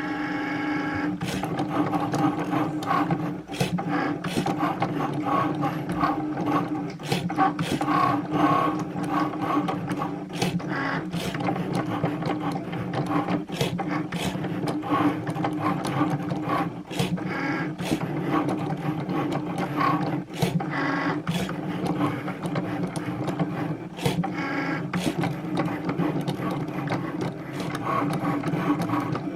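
Cricut Maker cutting machine cutting cardstock: its motors run with a steady whine and frequent clicks as the blade carriage and rollers move. It stops suddenly at the very end.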